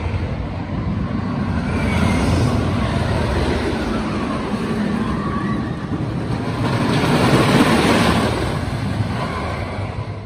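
Wooden roller coaster train rumbling along its wooden track. The rumble is steady and swells about two seconds in and again about seven seconds in as the train passes.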